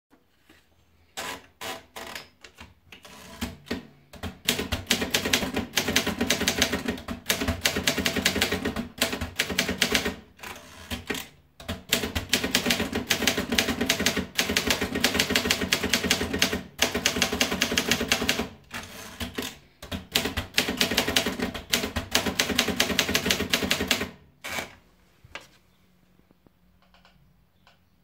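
Optima Elite manual portable typewriter: a few separate clicks as the sheet is fed in, then fast, steady typing of keys striking the paper, broken by a few short pauses. The typing stops about four seconds before the end.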